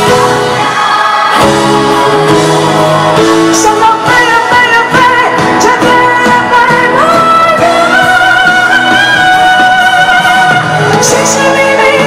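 Live pop band playing a song, with singing over the band, in a large hall.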